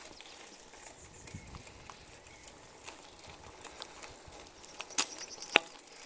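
Faint clicks and rattles of a bicycle rolling over a concrete slab road, with two sharp knocks about five seconds in.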